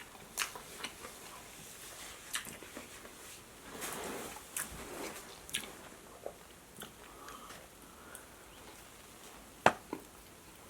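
Close-miked eating: chewing and biting with scattered crunches and wet mouth clicks, and one sharp loud click near the end.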